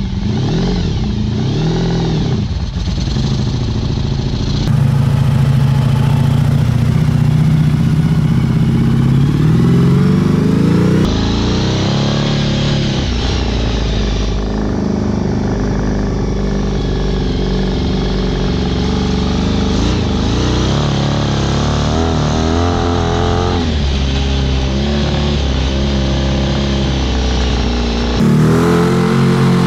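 Honda VF1000 V4 motorcycle engine driving a homemade dune buggy. The engine pitch climbs and drops again and again as the throttle is worked, with a sharp rise about ten seconds in and another near the end.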